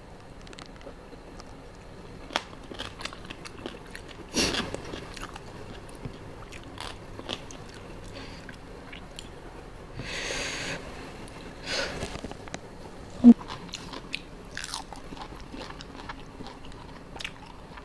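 Close-up chewing and biting of crunchy spicy seafood papaya salad, with many small wet mouth clicks and crunches. There is a short breathy hiss about ten seconds in.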